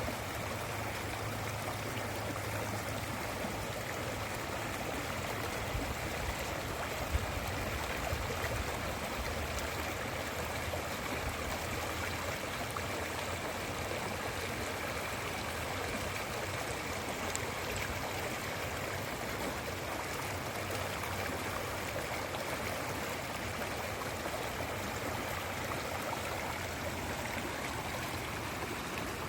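A mountain river of icy water rushing and gurgling over stones, a steady even flow, with one brief low thump about seven seconds in.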